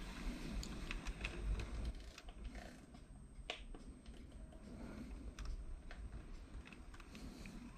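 Faint running noise of a Minitrix N-scale BR 218 model diesel locomotive going slowly round the track, with scattered light clicks. It has no built-in sound module and runs quietly.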